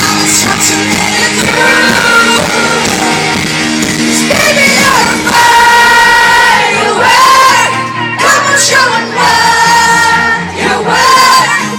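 Live pop concert music played loud, with sustained wavering singing over a steady band backing.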